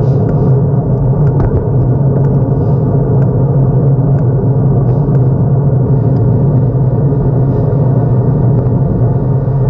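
Steady, loud rumble of riding along a road at speed, with a few faint ticks.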